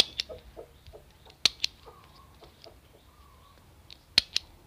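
Small handheld stapler clicking three times, each a quick double click of press and release, as it drives staples through folded banana leaves.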